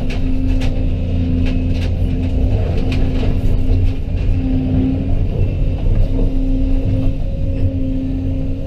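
Diesel engine of heavy earthmoving equipment running steadily, with a few sharp metallic knocks in the first three seconds or so.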